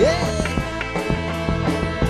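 Live band playing an instrumental passage between sung lines: guitar, keyboard and drums keep a steady beat, with a note sliding upward right at the start.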